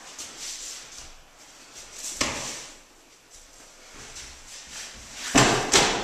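An aikido throw on a padded mat: gi cloth rustling and feet shuffling, a sharp thud about two seconds in, then two loud thuds in quick succession near the end as the thrown partner lands on the mat in a breakfall.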